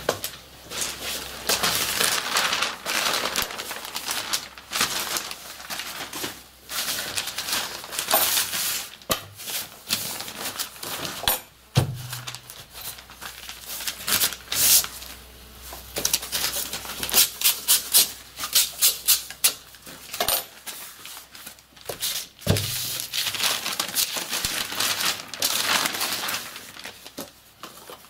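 Brown kraft paper rustling and crinkling in irregular bursts as it is handled and wrapped around a cylindrical firework shell, with two dull thumps, one near the middle and one about two-thirds of the way through.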